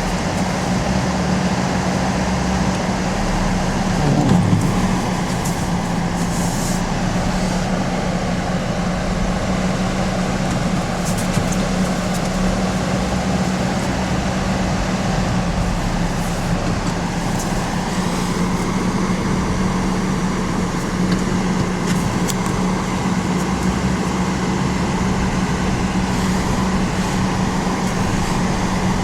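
A steady motor running, with a constant low hum over an even rushing noise and a brief swell about four seconds in.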